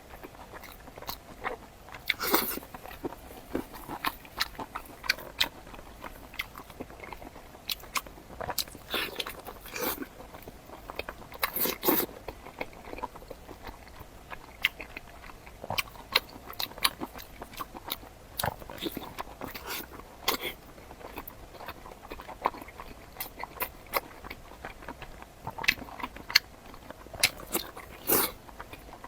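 Close-miked eating sounds: biting and chewing, with crisp clicks and short crunches at irregular intervals.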